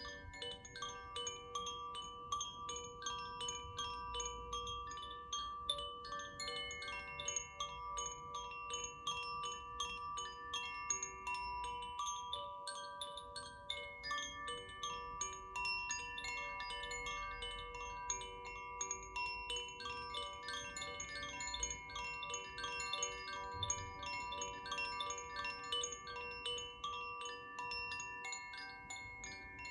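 Koshi wind chimes being swirled, their tuned rods struck rapidly and continuously by the clapper. The result is a dense, shimmering tinkle of overlapping ringing tones.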